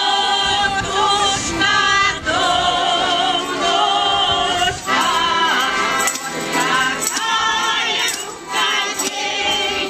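A women's folk choir singing a Russian folk song in phrases, with accordion accompaniment.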